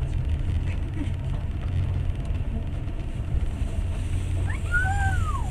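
Passenger train running, a steady low rumble heard from inside the carriage. About four and a half seconds in, a brief high sound glides up in pitch and back down.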